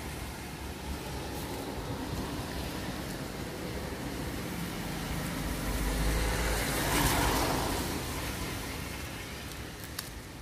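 A road vehicle passing by: a low rumble builds and swells about six to seven seconds in, then fades. A single sharp click comes near the end.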